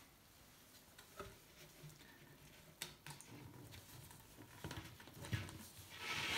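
Plastic end cap with a foam rubber seal being fitted and pressed down onto a 160 mm plastic ventilation duct: faint knocks and handling clicks, then a louder rubbing noise near the end as the cap is pushed home.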